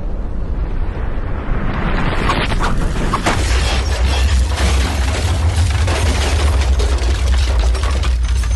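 Deep, continuous rumble of a volcanic eruption with crackling and sharp cracks over it. It swells about two seconds in and grows heavier a second later.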